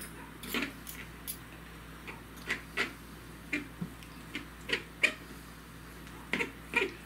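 Forks shredding cooked chicken thighs: short, irregular scrapes and clicks of metal on the plate or board, a few each second.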